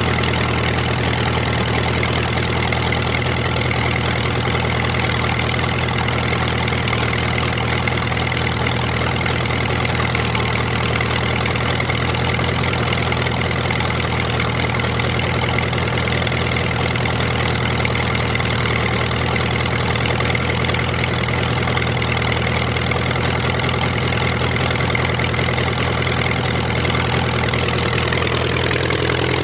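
1916 Sturtevant supercharged 555 cubic inch aluminium V8 aero engine idling steadily through its short open exhaust stacks, still warming up shortly after a cold start.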